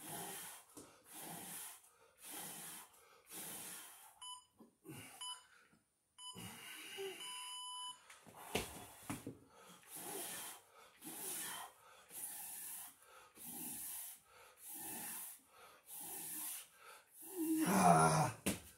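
A man breathing hard in a steady rhythm through burpee push-ups, about one heavy breath a second, ending in a loud voiced exhale as he pushes up. A few short electronic beeps sound between about four and eight seconds in.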